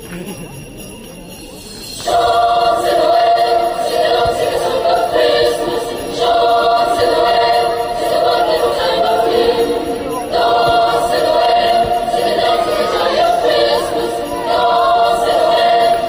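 Christmas music with a choir singing and jingle bells, coming in loudly about two seconds in after a quieter stretch.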